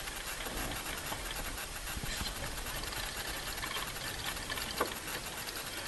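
Steady rush of wind on a helmet-mounted camera's microphone, mixed with water rushing along a sailboat's hull as it sails, with a short click near the end.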